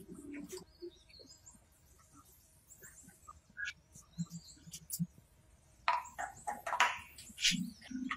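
Scattered light metallic clicks, taps and scrapes as the ignition stator plate of a vintage Honda 110cc engine is worked loose and lifted off the crankcase, with a louder clatter of metal parts about six to seven seconds in.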